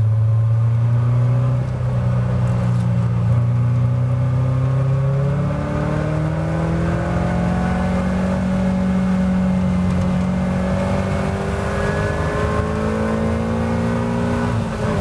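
Caterham 270R race car's 1.6-litre Ford Sigma four-cylinder engine pulling hard under acceleration, heard from the open cockpit, its pitch climbing through the gears with a brief step at each upshift.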